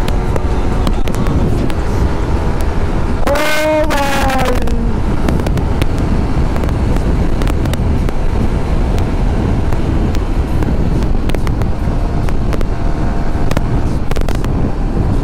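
Heavy wind noise on a Sony LV1 lavalier mic while riding a Yamaha R15 V3 motorcycle at high highway speed, with engine drone underneath. This is the wind noise the rider fears is spoiling the mic's sound at speed. About three seconds in, a horn sounds for a second or so, its pitch falling as it passes.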